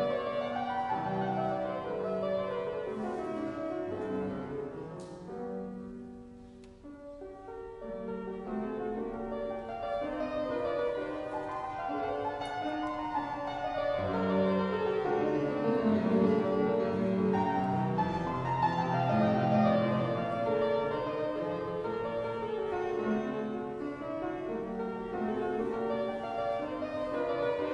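Walter-model fortepiano, a copy by McNulty, played solo in a classical-era set of variations. About six seconds in the notes die away into a short pause, then the playing resumes and builds up louder.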